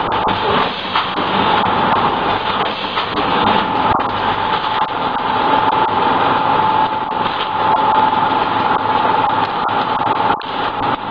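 Granule weighing, form-fill-seal packaging machine running: a steady mechanical din with a constant whine.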